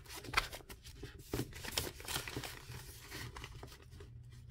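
Paper money and a laminated tracker card being handled and slid into the clear plastic pouch of a ring binder: irregular crinkling and rustling, with a few sharp clicks.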